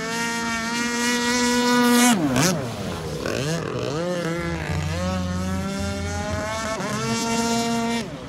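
Two-stroke 26cc gas engine of a Shockwave RC speedboat running at high revs, a steady high-pitched whine that grows louder until about two seconds in. The revs then dip sharply and rise and fall a few times as the boat turns, hold steady again, and drop off near the end.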